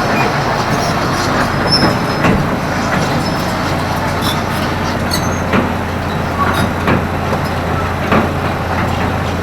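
Hydraulic excavator's diesel engine running steadily with a constant low hum while it levels soil, with scattered short knocks and clanks from the machine at work.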